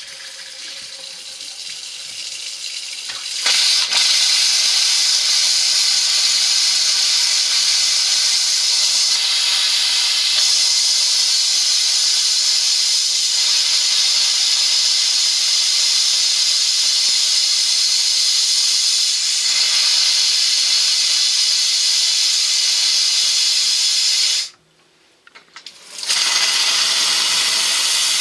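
Compressed air hissing out through an RV's water lines as they are blown out for winterizing. It builds over a few seconds, then runs loud and steady. About 24 seconds in it cuts off sharply for a second or two, then starts again.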